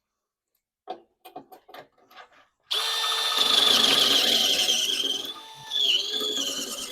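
A few handling clicks, then about three seconds in an electric drill starts and runs steadily with a high whine, boring out a 3/8-inch bolt hole so a metric 10 mm bolt will fit. It eases off briefly partway through and then bites again.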